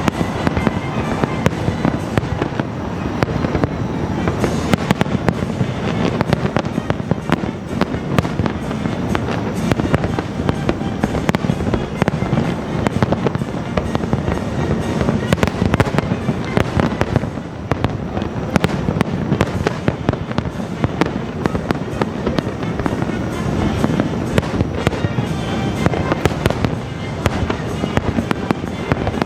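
Aerial fireworks display going off in a dense, unbroken barrage of booms and crackles, many bursts a second, with orchestral music playing.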